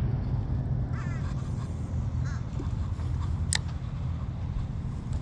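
Wind buffeting the microphone as a steady low rumble, with a few short bird calls about one second and two seconds in. A single sharp click sounds about three and a half seconds in.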